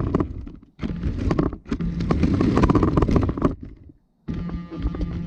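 Radio-controlled car, with the recording GoPro mounted on it, driving over brick pavers in short runs. Its motor runs with a steady hum while the chassis rattles and clicks over the brick joints. The runs stop briefly several times, with a half-second pause near the end.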